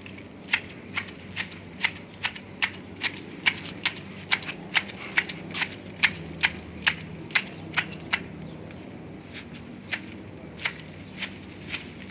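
Hand pruning shears snipping twigs and foliage in a quick, regular run of sharp clicks, about two to three cuts a second, thinning out for a couple of seconds near the end.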